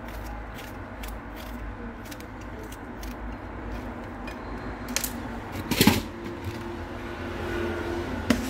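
A small knife cutting pieces off a cucumber held in the hand, each cut a short crisp click as the pieces drop onto the salad plate. About six seconds in comes a louder clatter.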